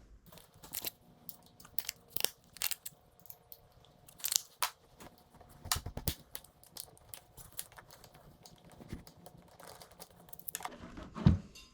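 Irregular light clicks and clinks of hand tools, with a few sharper knocks, as an Allen key is fetched and used on the fuel-tank bolts of a dirt bike.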